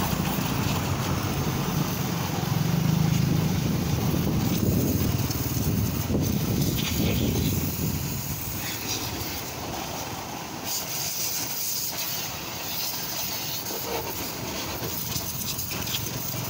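A motor vehicle engine running with a steady low rumble, loudest in the first half and easing off after about eight seconds.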